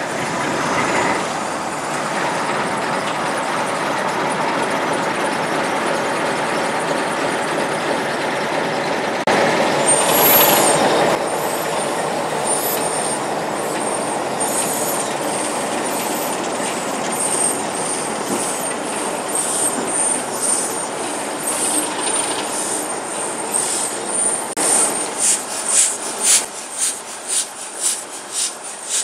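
GWR 42xx 2-8-0 tank steam locomotive hissing steadily as it stands, with a louder blast of steam about ten seconds in. Near the end its exhaust starts beating in rhythmic chuffs, about two a second, as it works away.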